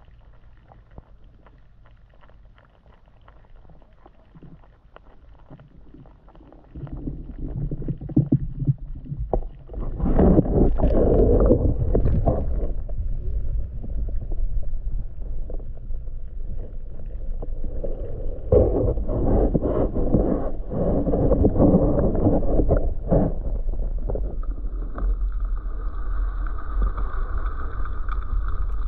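Low rumble and water noise picked up by a submerged camera as it is moved through river water: faint ticks for the first several seconds, then loud rumbling with two heavier stretches, and a steady hum joining near the end.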